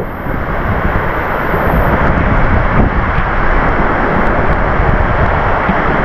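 Munduk waterfall pouring into its plunge pool: a steady, loud rushing of falling water.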